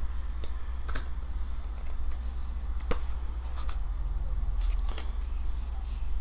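Pages of a thick paperbound book being leafed through and handled: scattered paper rustles and light taps, the sharpest about three seconds in, over a steady low hum.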